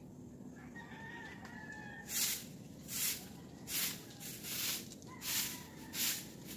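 A broom sweeping a wet concrete floor in regular scratchy strokes, about one every three quarters of a second, starting about two seconds in. Before that, a rooster crows faintly in the distance.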